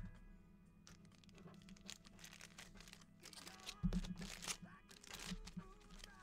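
Trading-card packs and cards being handled: wrappers crinkling and tearing and cards sliding, in a string of soft rustles and clicks, with a low thump about four seconds in.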